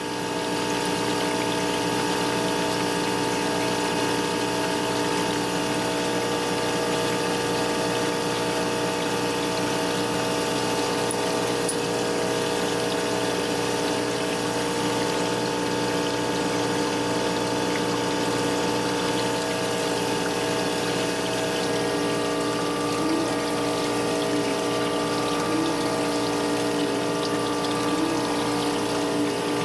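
Surface grinder running with a steady hum. Streams of coolant from a multi-stream nozzle splash onto the spinning wheel over the workpiece, and the coolant pump runs.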